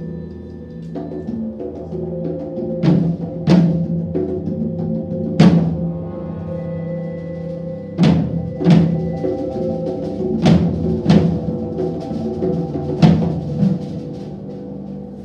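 Percussion orchestra of marimbas and drums playing a concert piece: held ringing pitched tones with loud sharp strikes over them, mostly in pairs about half a second apart, recurring every few seconds.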